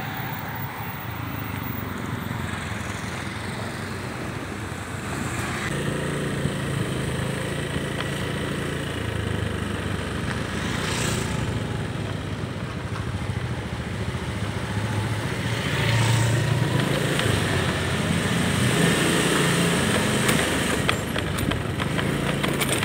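Motorcycle engine running steadily, growing louder about two-thirds of the way through.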